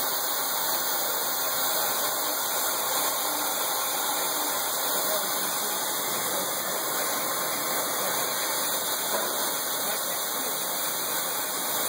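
Kuraki vertical machining center face milling a metal block held in a vise: the spindle and face mill cutter run with a steady, even cutting noise.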